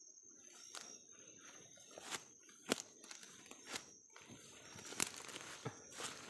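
Footsteps and rustling through leafy undergrowth, with irregular snaps and crunches of stems underfoot, the sharpest a little under three seconds in. A steady high cricket drone runs underneath.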